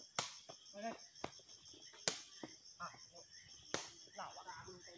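A sepak takraw ball kicked sharply three times, roughly every two seconds, during a rally. Under it runs a steady pulsing chirr of crickets, with brief shouts from the players.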